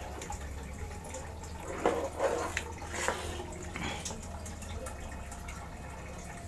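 Hand handling of a small plastic project box with air tubing attached: a few soft knocks and rustles between about two and four seconds in, over a steady low hum.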